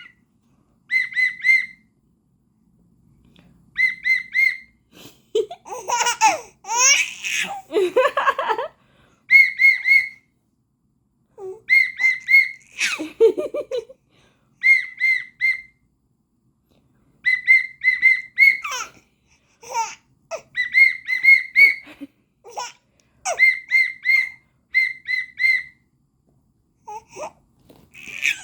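A whistle blown in quick runs of three to five short toots, over and over, and a baby laughing in bursts between the runs, with the longest burst of laughter about six seconds in.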